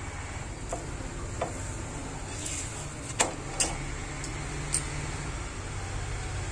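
A paratha being turned on a flat griddle (tawa): a few short taps and clicks, the loudest two about three seconds in, over a steady low hum.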